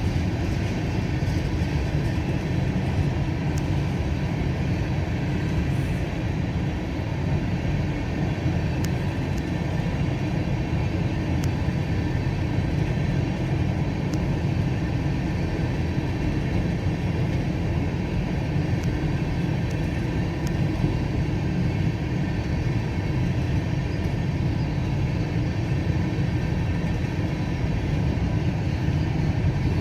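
CSX freight train rolling slowly past at about 10 mph, a steady low rumble of cars on the rails with a few faint clicks.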